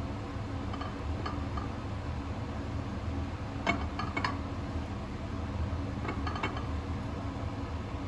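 Light clinks of glass or dishware, a few small taps in three short clusters, over a steady low hum.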